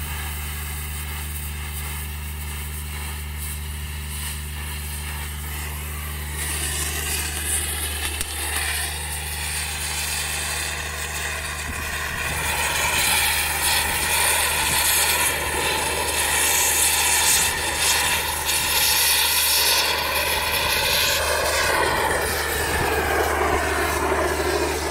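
Thermal lance burning into a solid steel shaft: a loud hissing roar of oxygen-fed burning with a faint whistle that sets in about six seconds in, grows louder, and dips in pitch near the end. Under it runs a steady low engine hum.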